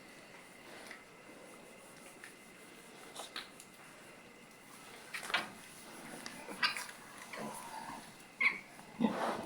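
Pigs in a pen giving short, scattered squeals and grunts, sparse at first and coming more often in the last few seconds.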